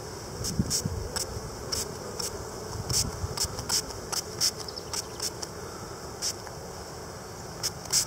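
Honey bees humming over the open top bars of a hive, with many short hisses of a hand spray bottle misting liquid smoke over them to drive them back down between the frames. A couple of low bumps come near the start and again about three seconds in.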